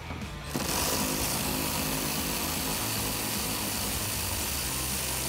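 Cordless power tool with a 10 mm socket spinning a bolt out of the inside of a truck's wheel well: a steady motor whir that starts about half a second in.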